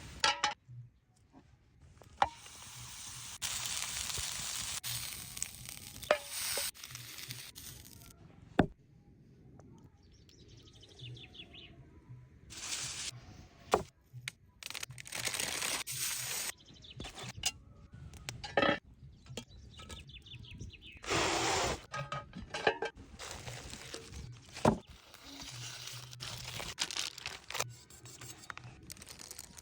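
Chicken sizzling as it fries in a pan, coming in spells of a second or two, between sharp clicks and knocks of utensils against the pan.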